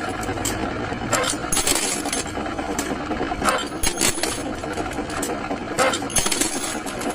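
A machine running with a dense, steady rattle, with sharp metallic clinks every second or two.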